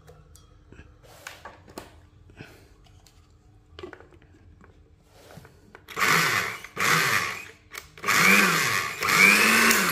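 Empty glass-jar 160 W countertop blender pulsed four times with its push button: the motor whirs up and winds down in short runs, the last two about a second each. Before that, a few faint clicks as the jar and lid are handled.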